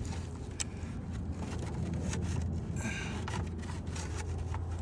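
Wood shakes scraping and clicking as they are pried and worked around their fasteners, with a brief squeak about three seconds in, over a steady low hum.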